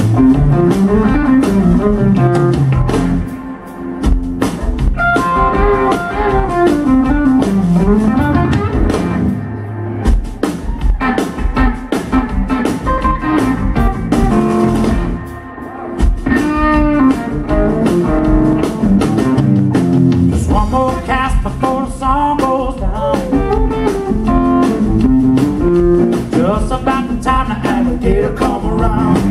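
Live blues band playing, the electric guitar leading over electric bass and a drum kit.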